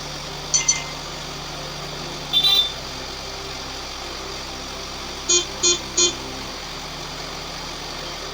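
A vehicle horn tooting in short blasts: two quick toots, a longer one a couple of seconds later, then three quick toots, over a steady low mechanical hum.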